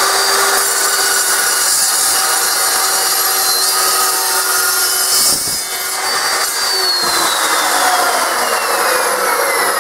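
Evolution dry-cut metal chop saw, its carbide-tipped blade cutting through flat steel strap: a loud, steady cutting noise, with a whine that falls steadily in pitch through the second half.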